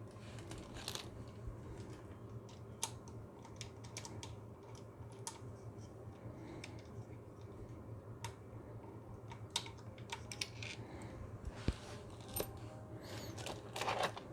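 Scattered light clicks and metallic taps of small hardware and hand tools being handled, irregular, with a busier clatter near the end, over a faint steady low hum.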